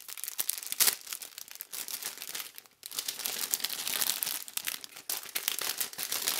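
Clear plastic bag crinkling as hands pull it open and handle it, with a brief pause a little before the middle.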